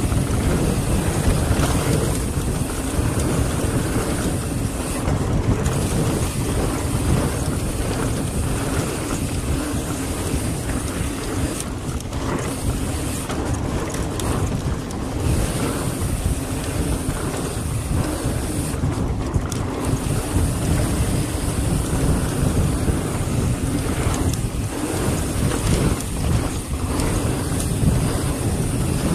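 Wind rushing over the camera's microphone together with the rumble of mountain-bike tyres rolling over a packed-dirt trail, steady and unbroken.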